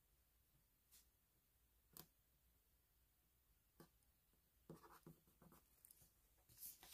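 Near silence, with a few faint taps and soft rubbing as fingers press paper stickers down onto a paper sticker picture.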